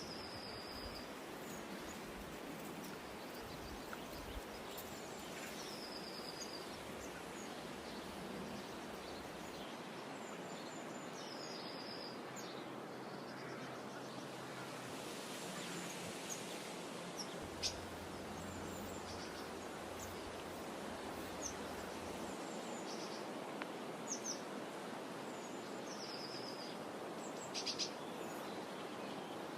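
Outdoor ambience: a steady background hiss, with a bird repeating a short high call every six seconds or so, a quick downward slur that levels off. A few sharp chirps stand out, the loudest a little past halfway and near the end.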